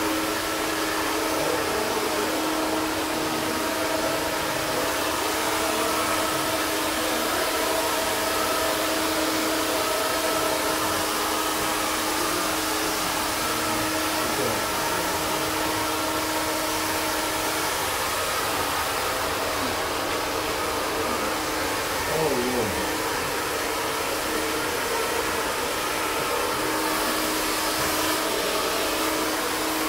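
Handheld iTera-Pro terahertz health blower running steadily, its fan giving an even rushing hiss over a constant hum. About two-thirds of the way through, a brief sound slides down in pitch.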